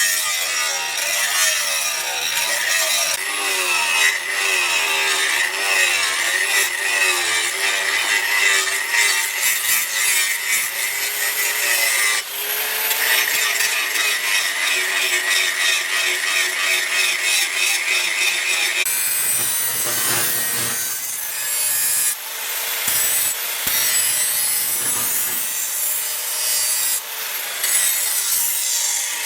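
A hand tool rasping back and forth in steady repeated strokes as the knife blank or handle is worked by hand. The stroke sound turns rougher and noisier a little past halfway.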